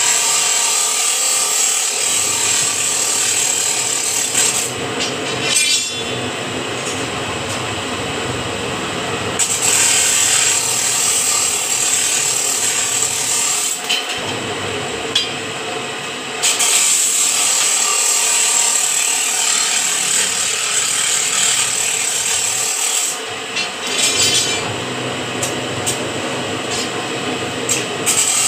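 Bar-bending machine running, its turntable slowly winding a square steel bar into a scroll around the centre die: a steady mechanical rubbing and grinding noise whose high hiss drops away and returns several times.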